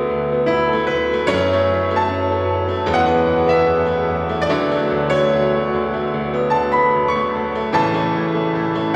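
Instrumental piano music: sustained chords with a melody above, the harmony changing about every one and a half to three seconds.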